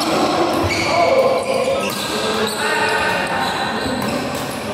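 Doubles badminton rally: rackets striking the shuttlecock and players' feet stepping and sliding on the court, echoing in a large hall, with voices in the background.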